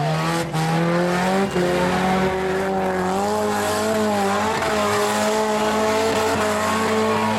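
Demolition derby compact car engines revving hard and held at high revs, one strained engine note that wavers slightly in pitch, as the cars spin their wheels in the dirt.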